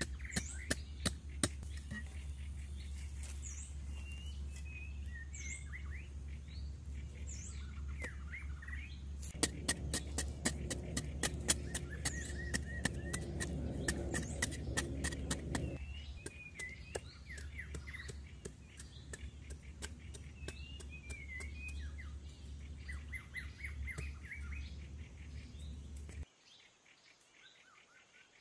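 A metal digging bar strikes repeatedly into dry, stony soil, coming fast from about ten seconds in at roughly four strikes a second. Birds chirp throughout. The sound drops away abruptly near the end.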